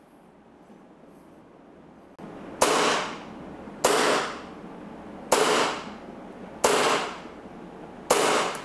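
Low-budget Tokyo Marui Hi-Capa gas blowback airsoft pistol firing five single shots on green gas, one about every second and a half. Each shot is sudden and dies away within half a second.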